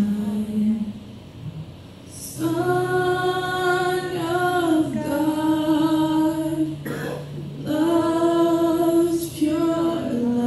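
Worship singing: a voice holding long drawn-out notes in several phrases over a low held note, after a short lull about a second in.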